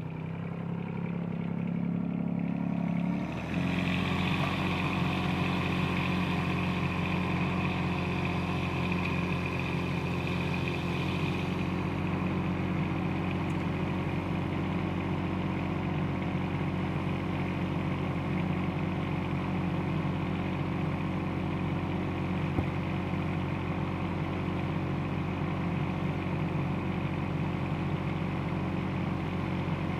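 Bobcat 418 mini excavator's diesel engine running, with the pitch rising over the first three seconds and then stepping up to a higher, louder steady speed as the arm and upper structure are worked. A single sharp click is heard about two-thirds of the way through.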